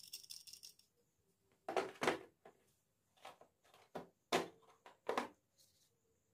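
A handful of short, sharp clicks and knocks, about six spread over a few seconds, as the drill and its packaging are handled.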